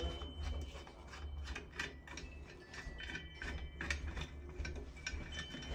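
A screwdriver backing out long faceplate screws from a shower valve trim, making a run of irregular clicks and ratchet-like ticks, several a second.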